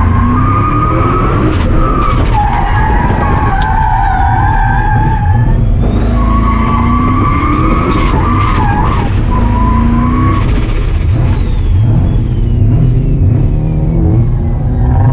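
Car drifting: the engine runs hard under load while the tyres squeal in two long spells, with a thin high whine that climbs and falls back twice.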